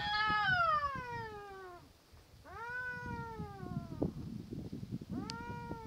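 Tomcats caterwauling in a territorial standoff: three long yowls, each one and a half to two seconds, the first the loudest and falling steadily in pitch.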